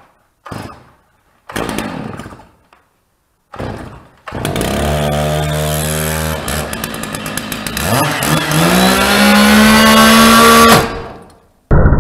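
A few short bursts of noise, then a Stihl MS 660 chainsaw starts and runs steadily at idle for a few seconds. About eight seconds in it revs up to full throttle, runs at a high steady pitch, then cuts off.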